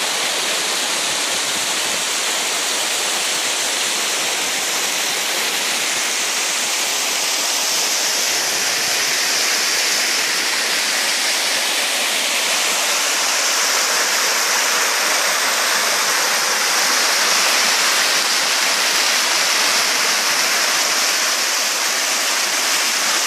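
Water of Wentworth Falls spilling over sandstone ledges into a pool: a steady rushing of falling water, a little louder past the middle.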